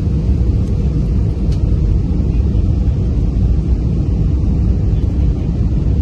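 Airliner cabin noise in flight: the aircraft's engines and the rushing air make a loud, steady, deep rumble heard from a window seat.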